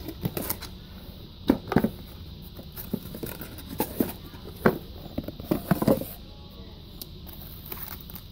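A small cardboard box being handled and opened by hand: scattered taps, scrapes and rustles of cardboard and foam packaging.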